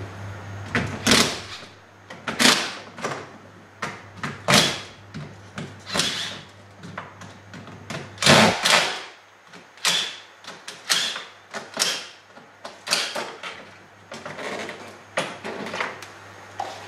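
Irregular sharp clicks and knocks, one or two a second, from hand-tool work on a wall-mounted electrical panel. A low steady hum under them stops about nine seconds in.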